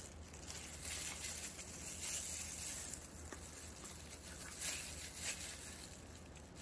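Faint rustling and crinkling from a clear plastic disposable glove handling a small metal can of dog food, with a soft click a little over three seconds in.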